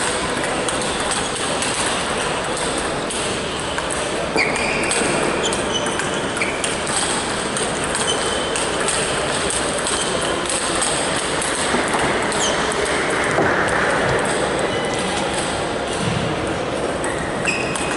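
Table tennis balls clicking off bats and the table during a doubles rally, with more ball clicks from other tables across the hall over a steady hum of hall noise. Short high squeaks come now and then.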